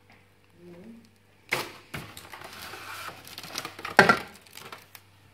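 Clear plastic bag being handled and crumpled, a run of crinkling and crackling with sharp crackles about a second and a half in and again near four seconds.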